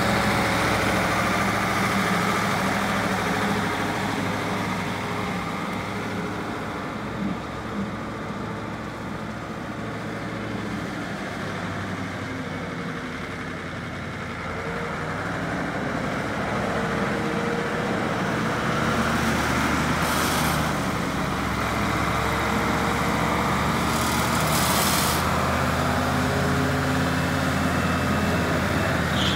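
1971 Massey Ferguson 1500 4WD tractor's Caterpillar 1160 V8 diesel engine running as the tractor drives around. It fades as the tractor moves away, then grows louder again as it comes back, from about halfway through.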